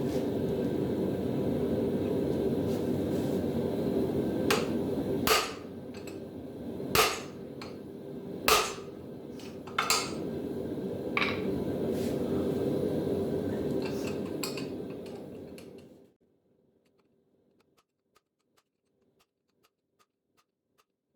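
Hand-hammer blows on a guillotine fuller tool, fullering a hot steel hammer head: about six sharp strikes a second or two apart, over a steady roar. The roar cuts off suddenly about sixteen seconds in, leaving near silence with faint ticks.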